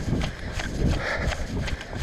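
Running footsteps on pavement: a steady rhythm of dull thumps.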